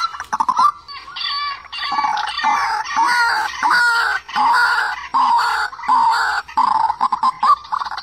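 White-breasted waterhen calling: a loud, dense run of harsh, repeated notes that rise and fall in pitch, with no pause.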